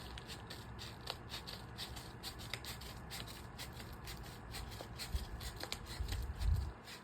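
Hands picking and scratching at the plastic wrapping of a DVD case: rapid small clicks and scrapes, with a few dull bumps of handling near the end.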